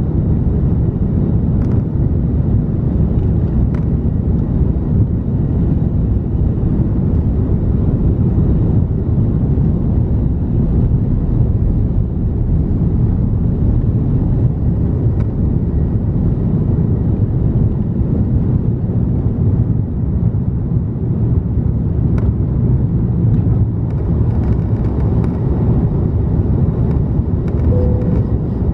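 Cabin noise of an Airbus A330-300 on its takeoff roll and liftoff: a loud, steady, deep rumble from the General Electric CF6-80E1 engines at takeoff thrust and the wheels on the runway, with a few faint clicks.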